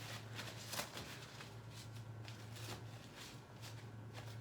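Faint rustling and a few light clicks of things being handled, over a steady low hum.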